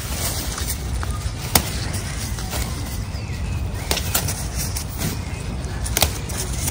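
Rustling and a few sharp snaps from someone moving through woodland undergrowth and picking plants, over a steady low rumble.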